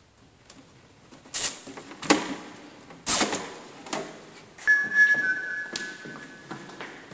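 Handling noise as a V-20 warning panel is tied onto a rear bike carrier: a series of knocks, clatters and scrapes about a second apart, with a brief ringing tone about five seconds in.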